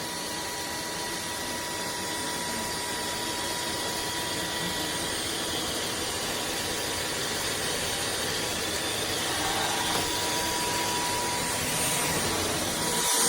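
Anyson cordless stick vacuum running on its maximum (red) power setting: a steady motor whine over the rush of air through the head.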